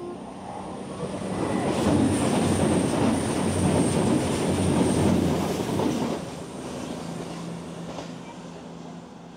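CrossCountry Voyager diesel multiple unit passing close beneath, with its underfloor diesel engines humming and wheels rumbling on the track. It builds to its loudest about two seconds in, holds for some four seconds, then drops off and fades as the train draws away.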